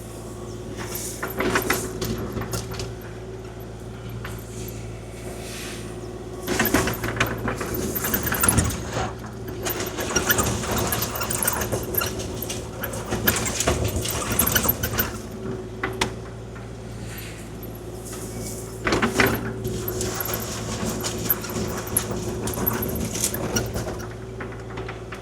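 Kubota KX040-4 mini excavator's diesel engine running steadily while the bucket scrapes and spreads gravel in irregular rattling bursts, the longest lasting several seconds from about a quarter of the way in, and another short one about three-quarters through.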